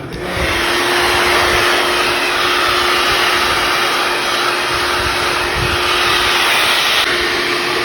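Hair dryer running, a steady rush of blown air with a steady hum from its motor; it comes on just as the sound begins.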